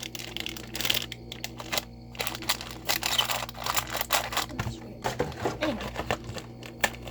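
Irregular clicks, taps and light rustling of packaged snacks and plastic containers being handled and packed into an organizer, over a steady low hum.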